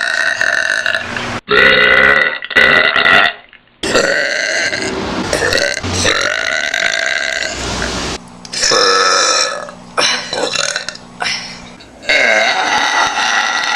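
A person burping loudly: a run of long, drawn-out burps one after another, each starting and breaking off abruptly, the longest lasting about four seconds.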